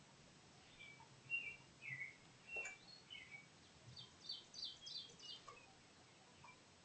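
Birds chirping: scattered short, high chirps, then a quicker run of chirps about four seconds in. One soft click midway.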